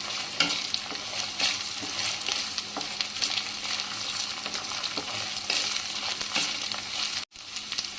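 Ginger-garlic paste, green chillies and browned onion sizzling in hot oil in a kadhai while being stirred, the spatula scraping and tapping the pan in scattered clicks. The sound breaks off for an instant near the end.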